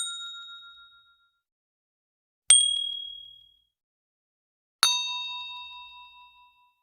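Three separate bell-like ding sound effects: one at the start, one about two and a half seconds in, and one near five seconds in. Each strikes sharply and rings out with a few clear high tones before fading. The last has a lower tone added and rings the longest.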